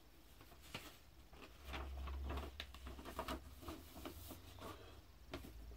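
Faint handling of a vinyl LP and its sleeve: soft rubbing and scattered light clicks, with a low rumble from about a second and a half in.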